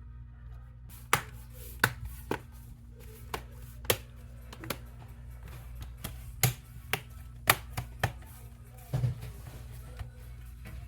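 Irregular sharp clicks and taps of a laptop being closed up: the plastic bottom cover being fitted and small screws handled, over a steady low hum.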